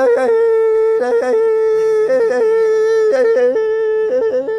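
A man yodeling: a high note held steadily, flipping briefly down about an octave and back again eight or nine times at an uneven pace.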